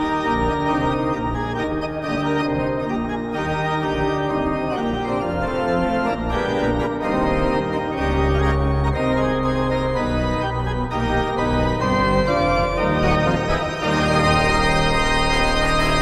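Hockey-arena style electric organ music: a quick organ tune over a steady bass line, at an even level throughout.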